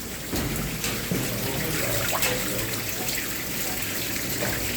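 Water trickling and dripping from a seep in a cave, a steady running trickle with scattered small drips.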